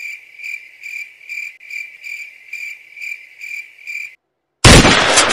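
Cricket chirping at an even pace, about two and a half chirps a second at one steady pitch, stopping about four seconds in. After a brief silence, a sudden loud burst of noise starts near the end.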